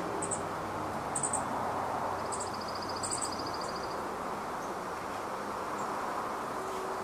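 Steady hum of suburban road traffic. High, thin bird chirps break through it several times, and a rapid, even bird trill runs for nearly two seconds just after the two-second mark.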